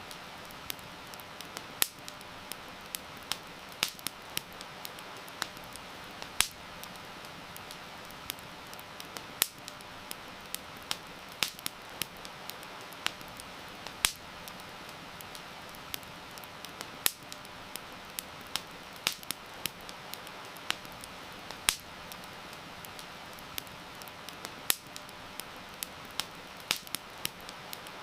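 Wood fire crackling, with sharp irregular pops a few times a second, over a steady hiss of falling rain.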